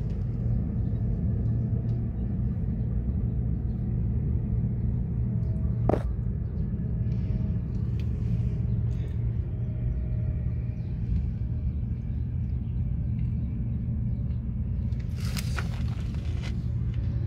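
Steady low rumble of an idling engine. A single sharp click comes about six seconds in, and there is a brief noise near the end.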